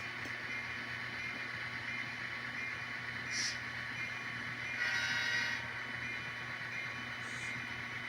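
HO-scale model diesel locomotive running slowly on the layout, its sound-decoder engine sound steady through the track. A short high hiss comes about three and a half seconds in, and a louder, brief sound about five seconds in.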